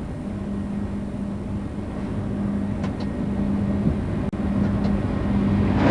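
Train running, with a steady engine drone and rumble that grows slowly louder.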